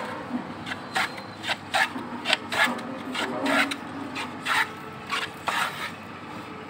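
Metal bench plane shaving a thin pine board in quick, uneven strokes, each pass a short rasping swish. There are about a dozen strokes, roughly two a second, and they stop shortly before the end.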